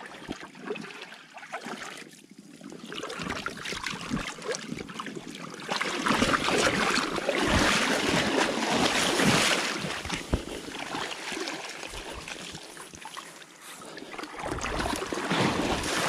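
Shallow water splashing and sloshing around waders and a scoop net as someone wades and scoops. The splashing is heaviest for a few seconds in the middle and eases off toward the end.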